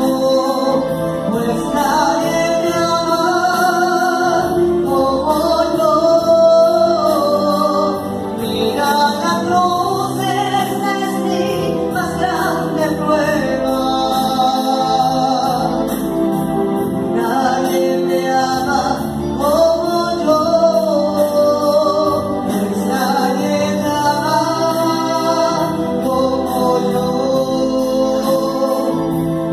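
A woman singing a Spanish-language Catholic worship song into a microphone over a PA, accompanied by sustained electronic keyboard chords.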